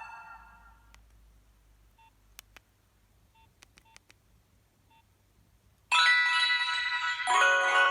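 Nokia 2760 mobile phone: one ringtone dies away, then four short keypad beeps and a few sharp key clicks, and about six seconds in the next preloaded ringtone starts abruptly and loudly.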